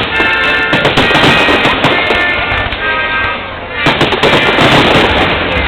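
Fireworks shells bursting and crackling in quick, irregular succession, loud, with music for the show playing underneath.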